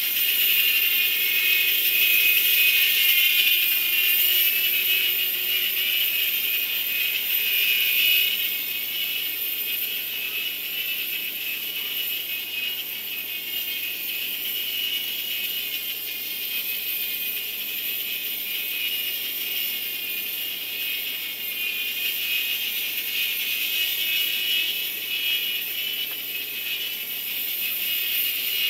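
Small electric motors and rotor blades of a cheap two-channel toy helicopter whirring steadily in flight, a high-pitched buzz that is a little louder during the first eight seconds or so.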